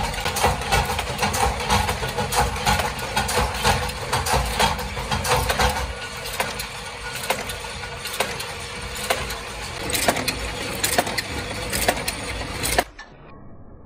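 Small pressed-metal lamp screw shells clinking and clattering as hands rake through a tray of them, over the steady hum of workshop machinery. After a few seconds the clatter thins to the spaced clicks of a shell-forming press running. It cuts off suddenly near the end.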